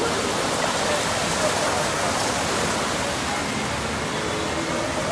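Steady rushing noise of water, typical of rain or flowing floodwater.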